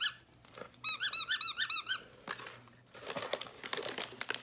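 A plush dog toy's squeaker squeaking over and over, about eight squeaks a second, for about a second. Then a couple of seconds of crinkling, rustling plastic packaging.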